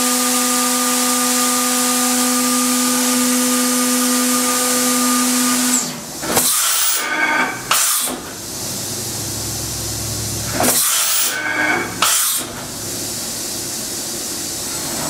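Fanuc Robodrill T21iFLA spindle running at 15,000 RPM, a steady whine over a hiss, which stops suddenly about six seconds in. It is followed by two clusters of short bursts of mechanical noise as the machine's head and axes move.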